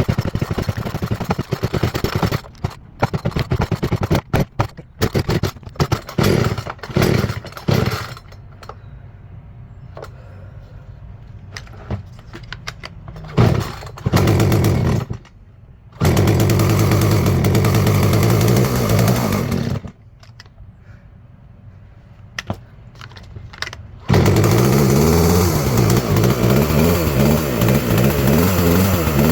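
Craftsman two-stroke chainsaw being pull-started over and over with the choke off and throttle held, to clear what the owner calls a clog. After a run of pulls it fires briefly, runs a few seconds and dies, then catches again and runs with its speed rising and falling near the end.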